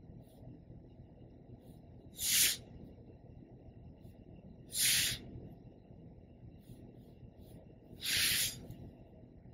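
Three separate scratchy hisses of a fineliner pen drawing quick straight lines on paper, each under a second long, about two and a half to three seconds apart, the last the longest.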